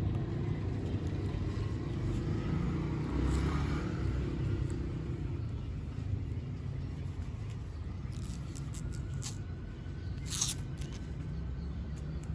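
A steady low background rumble. Over it come a few light clicks and taps of the plastic Logitech G435 headset being turned over in the hands, bunched from about eight seconds in, the sharpest one about ten and a half seconds in.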